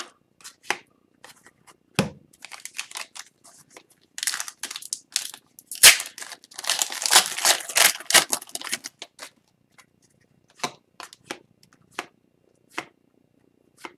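Plastic wrapper of an Upper Deck hockey card pack torn and crinkled open, a dense crackling stretch in the middle, amid scattered light clicks and slides of trading cards being handled and flipped through.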